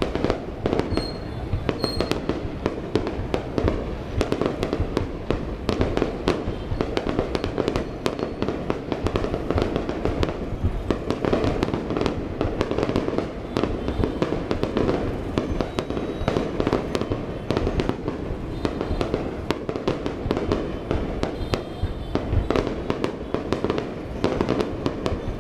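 Large fireworks display: a dense, continuous barrage of shell bursts and crackling reports over a low rumble, with no gaps.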